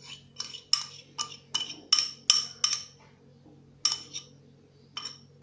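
Metal spoon clinking and scraping against a ceramic bowl as thick melted chocolate cream is scraped out of it: about eight quick clinks in under three seconds, a pause, then a few more near the end.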